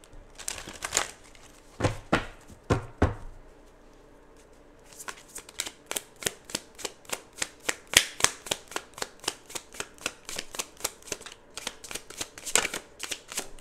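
Oracle card deck being shuffled by hand: a few soft handling clicks, then a quick even run of card slaps, about six a second, for several seconds, and a few more near the end.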